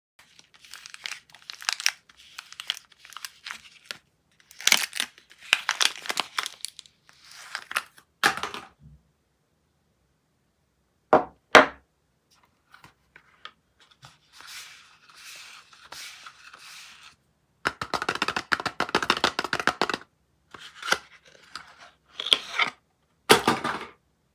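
Soap packaging being torn open and crinkled by hand, in irregular bursts with short pauses. There are two short, sharp crackles about halfway through.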